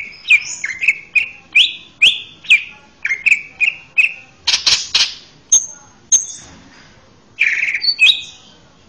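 Male greater green leafbird (cucak ijo) singing: a rapid string of loud, sharp whistled notes, two or three a second, each dropping in pitch, with a harsher rasping passage about halfway and a longer burst of song near the end.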